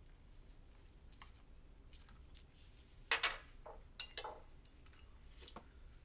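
A person eating from bowls with chopsticks: faint chewing and small clicks, then a few louder short sharp sounds from about three seconds in.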